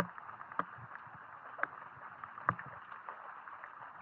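Footsteps splashing and sloshing through shallow water on a flooded forest trail, a few sharp splashes over a steady hiss of heavy rain.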